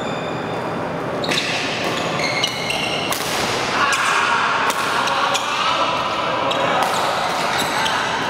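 Badminton doubles rally: the sharp clicks of rackets striking the shuttlecock, footfalls, and repeated short high squeaks of court shoes on the hall floor.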